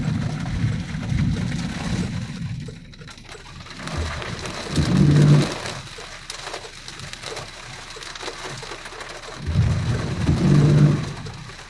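Heavy rain falling on a car, heard from inside, with the windshield wipers sweeping three times about five seconds apart, each sweep a low hum.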